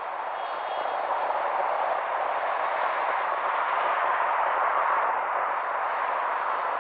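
Steady hiss of street traffic at a city intersection, swelling slightly as a car drives across in front.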